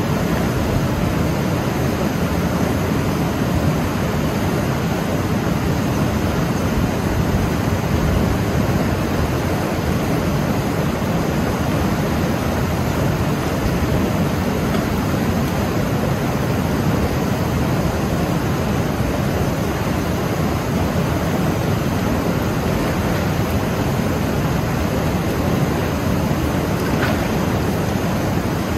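Fast mountain river rushing over boulders through white-water rapids: a loud, steady rush of water that holds unchanged throughout.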